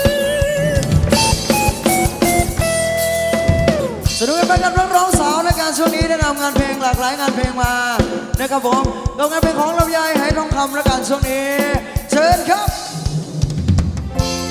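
Thai ramwong dance band music taken from the mixer: a drum kit keeps a fast, even beat under a lead melody that slides and wavers in pitch, with one long held note just before it begins.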